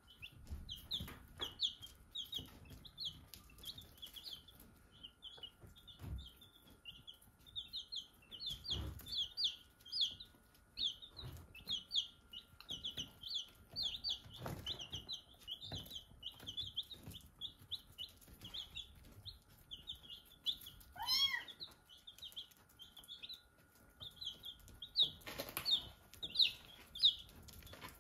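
Baby chicks peeping constantly, many short high cheeps a few a second, over scattered soft thumps. About 21 seconds in a single louder rising call stands out above the peeping.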